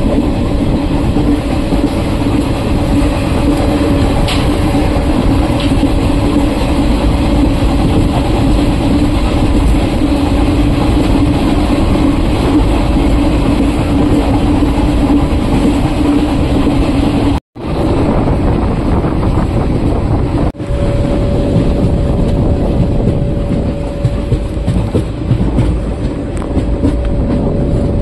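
Passenger train running at speed, heard from an open coach doorway: steady rumble and rattle of the wheels on the rails, with a steady hum. The sound cuts out for a moment about 17 seconds in and dips again about 20 seconds in.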